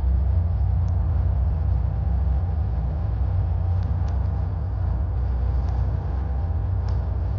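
Steady low rumble of a boat under way on open water, with a few faint ticks.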